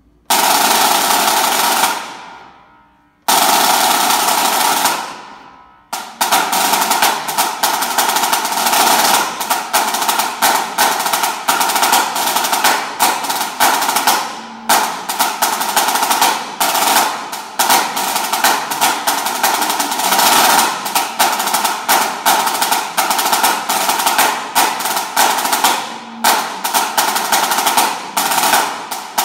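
Refurbished Premier HTS 200 high-tension pipe band snare drum played with sticks: two long rolls near the start, each stopping and ringing away over about a second, then a steady run of fast rolls and rudiments with short breaks. The owner finds it tuned a bit flat.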